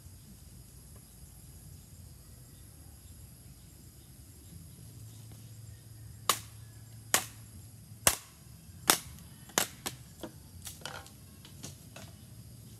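Sharp pops and cracks from a bamboo tube heating in an open wood fire, about ten in irregular succession starting about halfway through, the first few loudest.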